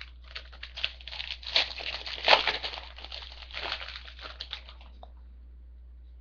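A foil trading-card pack wrapper being torn open and crinkled, in quick crackly bursts for about five seconds, loudest around two seconds in, then stopping.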